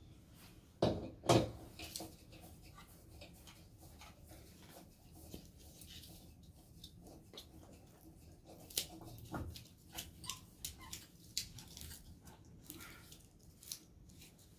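Handling noise from work on an adjustable bed base's metal frame and wiring: scattered short clicks, taps and rustles, with two louder short knocks about a second in.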